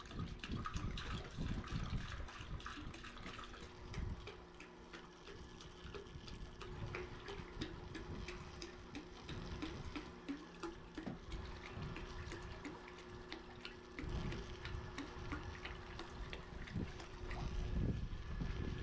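Liquid fertilizer trickling and gurgling in a poly tank, with scattered small clicks and a faint steady hum. Wind rumbles on the microphone near the start and again near the end.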